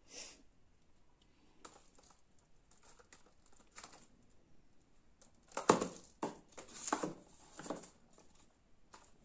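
Hands handling small cups hung on twine and objects on a newspaper-covered shelf: faint rustles and light clicks, with a sharp knock about five and a half seconds in followed by a few louder rustles and taps.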